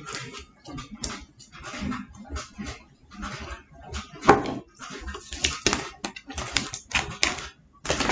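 Irregular rustles, clicks and knocks of things being handled on a tabletop: a black plastic tray, a glass and fresh snow peas, with one sharper knock about four seconds in.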